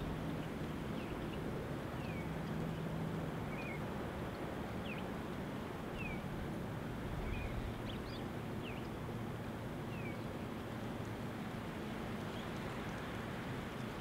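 Birds chirping: short, high, falling chirps about once a second, over a steady rush of wind.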